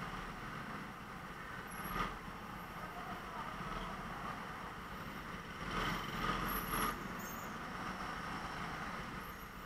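Go-kart engine running on the race track. There is one short sharp knock about two seconds in, and the sound grows louder for about a second around six seconds in.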